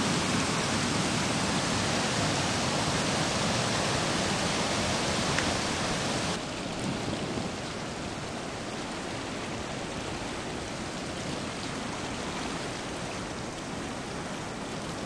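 Fast-flowing floodwater rushing as a steady, even noise, which drops to a lower level about six seconds in.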